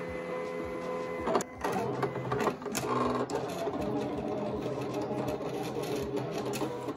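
Silhouette electronic cutting machine cutting a sticker sheet: its blade carriage and roller motors whir in stretches that shift in pitch as the cut moves around the page.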